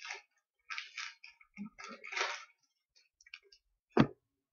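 A Magic: The Gathering booster pack's foil wrapper crinkling and crackling in several short bursts as it is opened by hand, then a single sharp knock about four seconds in.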